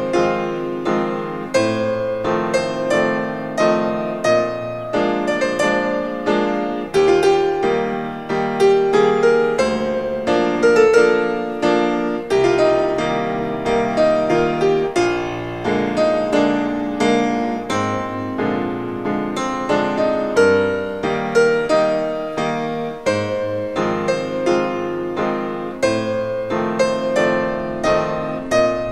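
Background music: solo piano playing a flowing piece with a steady stream of notes.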